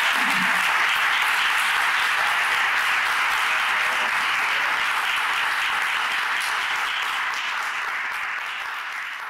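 Audience applauding at the end of a talk: steady clapping that slowly dies away near the end.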